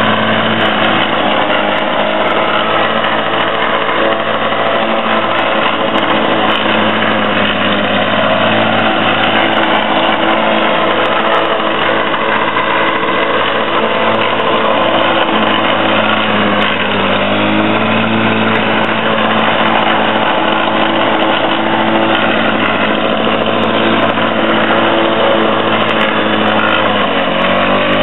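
Petrol rotary walk-behind lawn mower running steadily while cutting grass. The engine drops briefly in pitch and recovers twice, about two-thirds of the way through and near the end.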